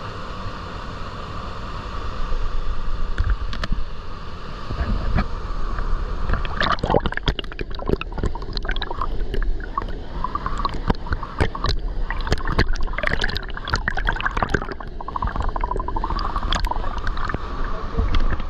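Rushing water of a waterfall and creek, with irregular splashing and sloshing in the water from about six seconds in.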